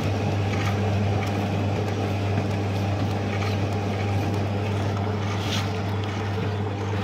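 Conveyor belt running with a steady motor hum, and a few light clicks as ash gravel rides along the belt.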